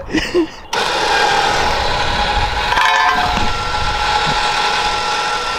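The Ariel Nomad's winch is reeling in its line with a steady whine over the car's running engine, dragging the shovel used as an anchor out of the turf. The sound starts abruptly about a second in, with a brief rougher patch near the middle.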